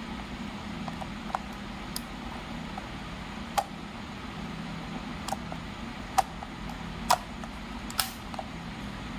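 Sharp plastic-and-metal clicks of a moulded case circuit breaker's operating mechanism being pressed and reset by hand, about six clicks at irregular intervals, over a steady low hum.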